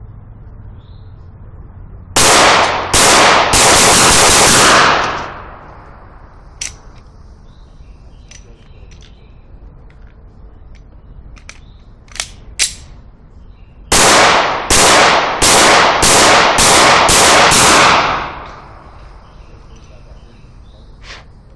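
Handgun fired in two strings: about three quick shots, then about seven shots roughly half a second apart, each shot loud and sharp with a short ringing echo. A few faint clicks fall between the strings.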